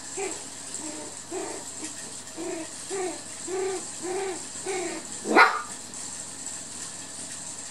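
Poodle puppies at play giving short yips, each rising and falling, about two a second. About five and a half seconds in comes one loud, sharp yelp.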